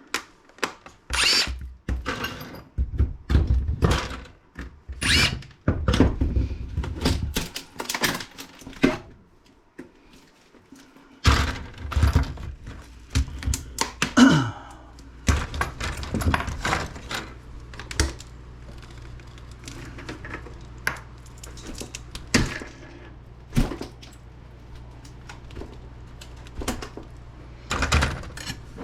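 Laptop screen assembly being dismantled: a run of clicks and knocks as screws are taken out and plastic and metal parts are handled. A steady low hum starts about a third of the way in.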